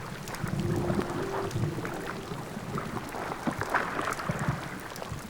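Sea water sloshing and lapping against a raft adrift on the ocean, with wind on the microphone.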